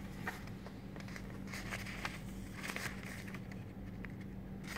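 Pages of a small paper quick start booklet being leafed through: soft rustling and light paper flicks, over a faint steady low hum.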